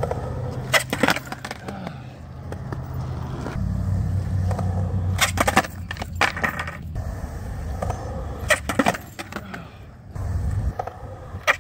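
Skateboard wheels rolling over concrete with a steady low rumble, broken by sharp clacks as the board spins through 360 shove-its and lands back under the skater's feet, in clusters about a second in, around five to six seconds and around eight to nine seconds.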